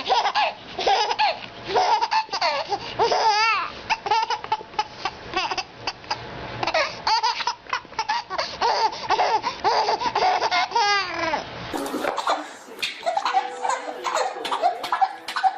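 A baby laughing hysterically in repeated bursts, with a few rising and falling squeals. About twelve seconds in it cuts to another clip, where the laughter goes on.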